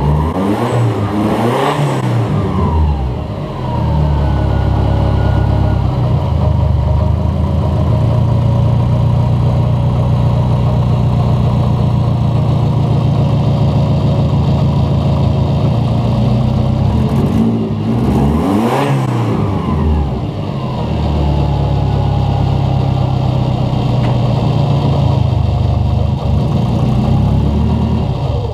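Turbocharged Subaru Forester flat-four boxer engine idling, with two short blips of the throttle, about a second in and again about 18 seconds in.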